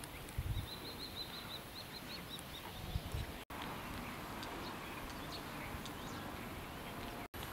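A small songbird singing a quick run of high chirps, then scattered single notes, over open-air ambience. There are a couple of low thumps on the microphone and two very brief dropouts in the sound.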